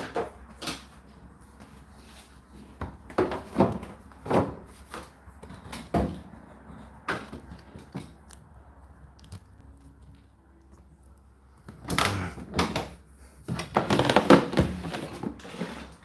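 Plastic knocks and clicks from an Indesit IDC8T3 condenser tumble dryer being handled, then a longer spell of sliding and rattling about twelve seconds in as its plastic water-collection drawer is pulled out of its slot.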